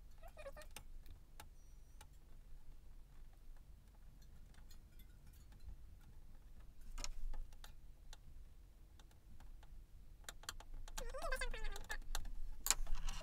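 Faint scattered clicks, taps and rustles of hands pressing and smoothing a cut vinyl decal onto the plastic lid of a cutting machine, with a sharper tap about seven seconds in and a short vocal sound near the end.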